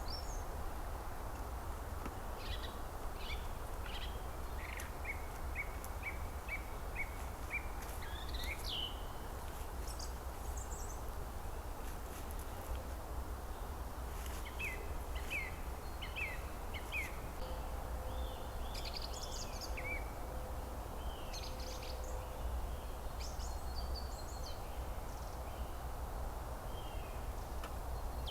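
Small songbirds chirping and calling in the forest, with a run of about seven evenly spaced short notes, two a second, about five seconds in. A steady hiss and low rumble of background noise lie under the calls.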